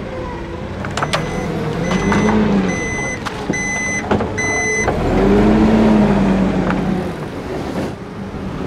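Forklift reversing: its backup alarm beeps about twice a second for a few seconds while the engine revs up and down, with a couple of sharp knocks.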